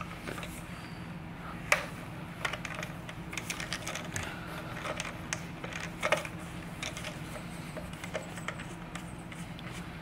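Phillips screwdriver turning out the screws that hold a vacuum motor's metal fan housing: scattered light clicks and ticks of tool on screw and housing, over a steady low hum.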